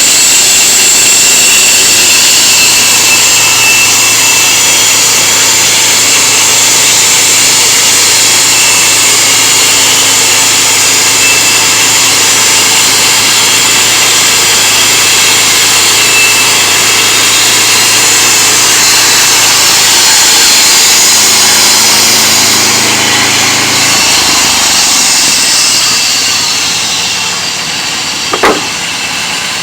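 Homemade engine-driven mobile sawmill sawing through wood, a loud steady cutting noise over the engine's steady hum. The sound eases off about twenty-four seconds in, and a single sharp knock comes near the end.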